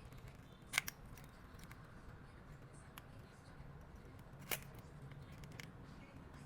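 Small hand tools clicking sharply against a phone and the bench: one loud click about a second in, another near the middle, and a few fainter ticks, over a low steady hum.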